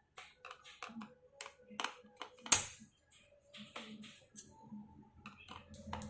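Small sharp clicks and taps of a laptop's plastic case, screws and screwdriver being handled during disassembly, with one louder knock about two and a half seconds in.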